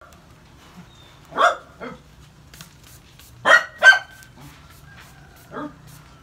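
A dog barking five times: two barks about a second and a half in, two louder ones past the middle, and a single quieter one near the end. Between the barks come faint short hisses of a trigger spray bottle being squeezed.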